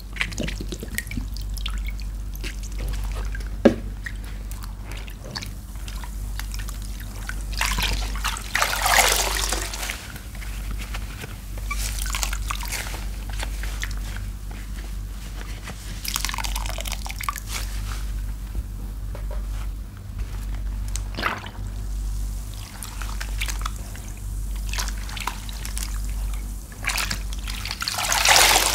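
Wet sponges squeezed in a basin of soapy water: water dripping and trickling back into the basin, with louder gushes every few seconds as a sponge is wrung out, the loudest about nine seconds in and near the end.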